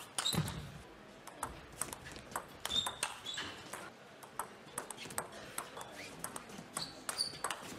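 Table tennis ball clicking off rackets and table in rallies: a string of sharp, irregularly spaced ticks, with short pauses between points.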